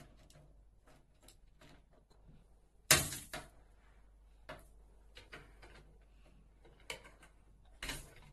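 Knocks and taps against a baby cot's divider panel, made by a baby's hands and a plastic toy: light clicks throughout, with one sharp loud knock about three seconds in and another near the end.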